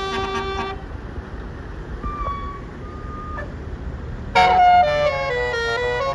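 Bus telolet horn, a Basuri multi-trumpet musical horn, playing tunes: a short run of notes at the start, a couple of brief single tones in the middle, then a much louder run of stacked horn notes from about four seconds in.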